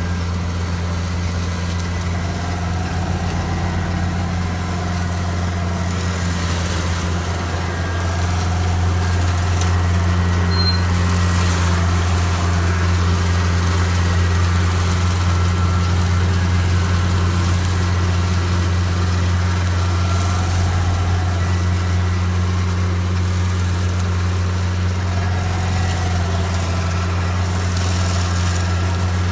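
Silage harvester (a grass and straw shredding machine) running steadily with a deep, even hum. It gets a little louder about eight seconds in.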